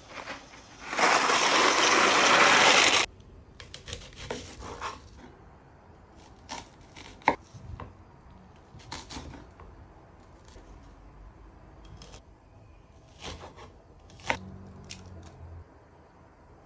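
A loud rush of noise lasting about two seconds near the start, then a knife cutting an onion and a garlic clove on a bamboo cutting board: scattered knocks and clicks of the blade against the wood, with one sharp click about seven seconds in.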